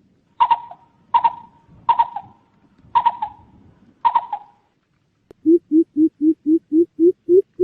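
Greater coucal calling: five sharp, clipped calls about a second apart, then, about five seconds in, a fast series of deep hoots, about four a second, rising slightly in pitch.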